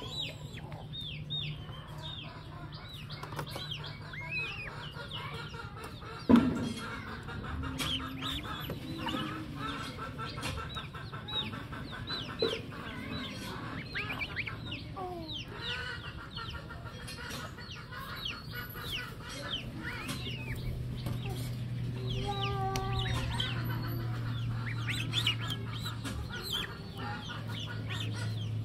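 Goslings peeping: a steady stream of short, high-pitched, falling peeps, with stretches of faster chattering calls. A single sharp knock about six seconds in is the loudest sound.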